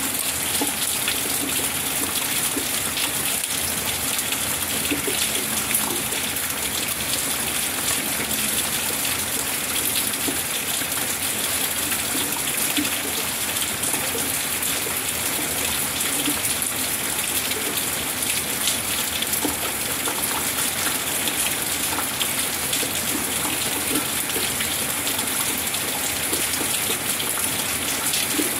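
Steady rain falling: a constant hiss of water with many small drop hits, unchanging throughout.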